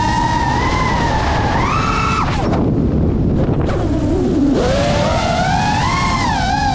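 FPV quadcopter's motors and propellers whining, the pitch rising and falling with the throttle. About two seconds in, the whine drops away for roughly two seconds as the throttle is cut, then comes back and climbs, over a steady rush of air noise.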